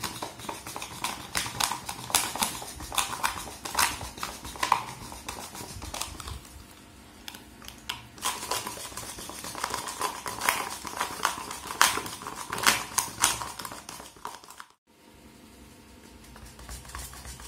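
A manual push whisk rattles and clicks against a clear plastic container in rapid, irregular clicks as it whips a dalgona coffee mixture into foam. The clicking softens for a couple of seconds about halfway, then cuts out briefly near the end and comes back quieter.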